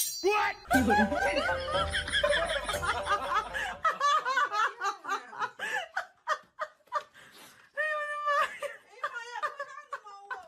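People laughing in short repeated bursts.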